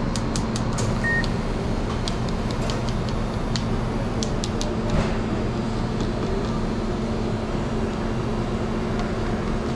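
Steady low hum of kitchen equipment and ventilation behind a restaurant counter. A run of light clicks sounds in the first half, and one short electronic beep about a second in.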